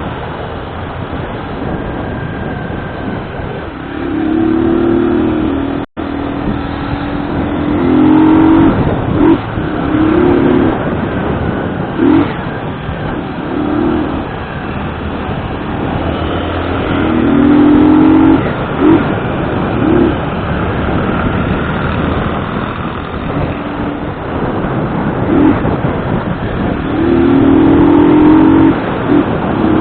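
Motorcycle engine running on a ride, revving up in repeated surges with short sharp blips of the throttle in between, over a steady rumble.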